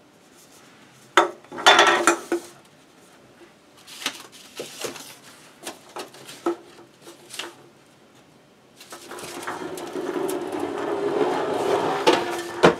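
Drinks cans clinking and knocking as they are set down on a sloping wooden board, then rolling down the board with a steady rolling noise that grows louder for about four seconds, ending in two sharp knocks.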